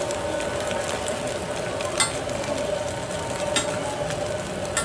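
Eggs frying on a flat steel griddle with a steady sizzle, and a metal spatula scraping the griddle with a few sharp clinks. A steady hum runs underneath.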